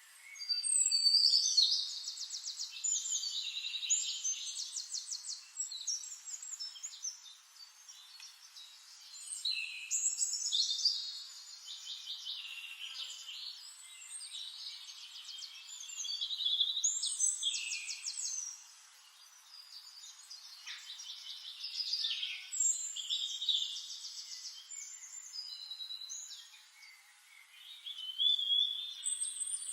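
Songbird song: high, varied phrases full of fast trills, a new burst of song every few seconds with softer chirping in between.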